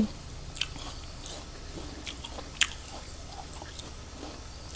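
A person biting and chewing a crisp nashpati (Asian pear), with soft wet crunches and one sharper crunch about two and a half seconds in.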